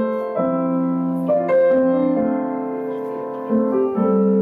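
Keyboard playing sustained piano-like chords, a new chord struck about every second.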